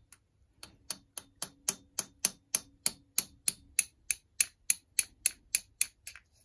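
Small hammer tapping a pin punch in light, even strikes, about three a second, driving the float pivot pin out of a Harley-Davidson Keihin CV carburetor.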